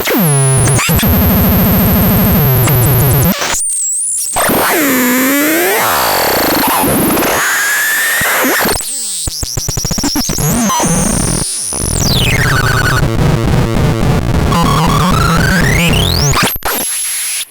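Harsh, noisy synthesizer tones from a lo-fi DIY synth, buzzing and pulsing with repeated swooping pitch glides, some falling and some rising. The sound drops out briefly twice and cuts off just before the end.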